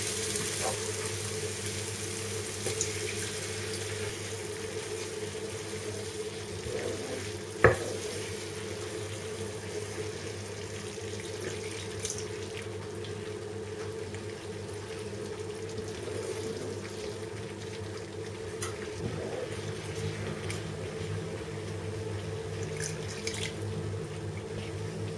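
Almond and flour sauce sizzling and bubbling in a frying pan as water is poured in and stirred through with a wooden spoon, over a steady low hum. A single sharp knock about seven and a half seconds in.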